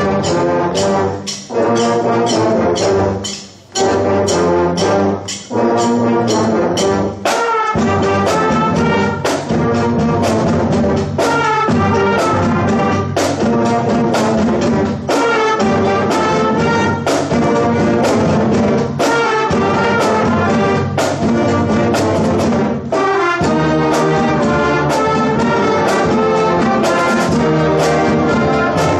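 Student concert band playing, with clarinets, saxophones and low brass such as tubas together. The music breaks off briefly twice in the first few seconds, then plays on without a stop.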